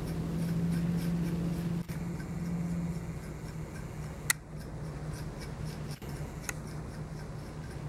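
A dematting tool raking through a Maltese puppy's tightly matted coat in repeated short, scratchy strokes, snagging on the mats. A steady low hum runs underneath, and two sharp clicks come in the second half.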